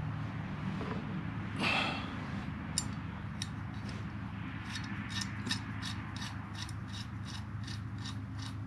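Ratchet wrench clicking steadily, about three clicks a second, as a nut is run down on a turn signal's mounting bolt, after a short scrape of metal parts being handled near the start.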